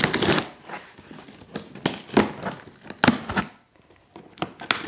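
Cardboard shipping box being handled and opened by hand: irregular crinkling, rustling and tearing of cardboard and packaging, with a short lull and then a few sharp clicks near the end.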